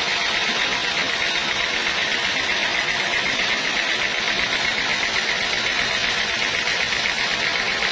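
Sawmill saw running steadily as it saws a teak log, a constant high hiss with a fast fine flutter.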